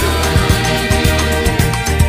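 Background music with a beat and sustained instrumental tones.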